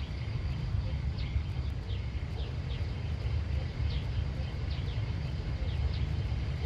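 Countryside ambience: a steady low rumble under short, high, downward chirps of a bird repeating about once or twice a second.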